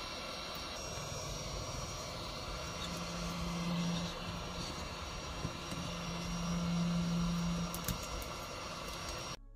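A steady mechanical whir with a low hum that swells in twice, then cuts off suddenly near the end.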